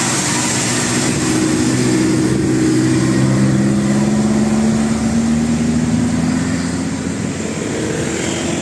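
Bus passing close by over road and tyre noise. Its engine drones loudest in the middle of the pass, the note rising slowly as it accelerates.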